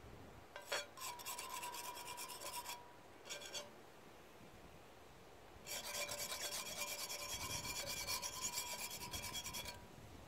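A steel knife blade scraped back and forth over a flat black griddle pan in quick rasping strokes, with a ringing metallic tone. Two short bouts come near the start, then a longer one of about four seconds from the middle.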